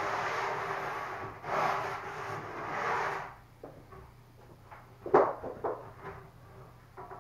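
A large laminated wooden panel scraping as it is slid and shifted, for about three seconds with two swells, then stopping. It is followed by a few wooden knocks as the board is handled and bumped, the loudest about five seconds in.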